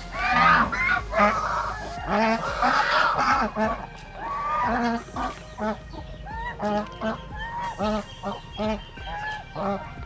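Half-grown ducks calling as they feed together from a basin: a dense overlapping chorus of short honking calls for the first few seconds, then single calls about one or two a second.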